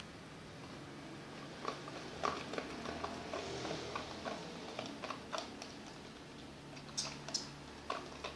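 A stirrer scraping and clicking irregularly against a container as thick slime mixture of glue, lotion and powder is stirred, with a few sharper taps near the end.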